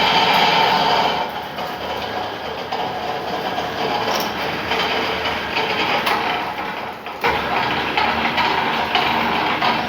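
Lathe running under cut, a steady mechanical rumble and grinding noise. It eases a little about a second in, dips briefly, then comes back up sharply.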